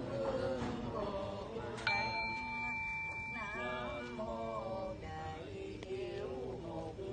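Buddhist prayer chanting, with a bell struck once about two seconds in, its clear ringing tone fading out over the next couple of seconds.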